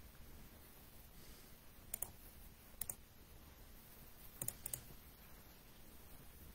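Faint computer mouse clicks over quiet room hum: a quick pair about two seconds in, another just before three seconds, and a close run of three or four clicks about four and a half seconds in.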